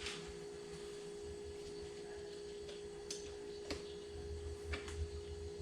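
A few faint, short metallic clicks as the brake pad retaining pin is worked back into a motorcycle's rear brake caliper, over a steady background hum tone.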